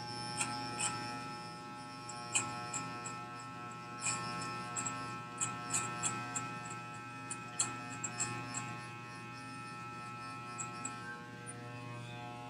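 Electric hair clippers running with a steady buzz as they are worked along the side of the head, blending a fade. Short crisp clicks come and go over the buzz as the blades catch and cut hair.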